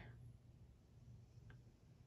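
Near silence: room tone with a low steady hum and one faint click about one and a half seconds in.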